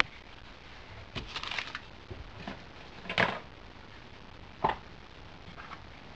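A few brief, scattered knocks and rustles over a quiet background: small handling sounds around the model steam engine's boiler.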